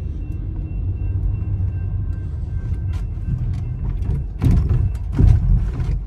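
Car interior: a steady low rumble as the car pulls away from the crossing, with two heavy thumps about four and a half and five seconds in as the tyres roll over the railroad tracks.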